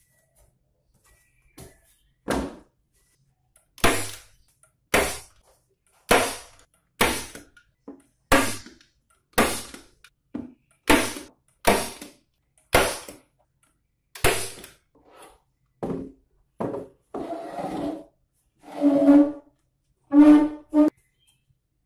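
A series of sharp knocks, roughly one a second, each ringing out briefly. Near the end come a few longer, rougher sounds.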